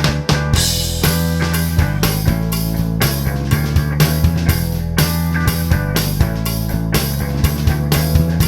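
Rock music with electric guitar and a drum kit, at a steady beat.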